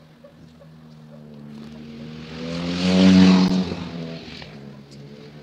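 A motor vehicle passes close by on the road. Its engine and tyre noise swell to a peak about three seconds in, then fade away.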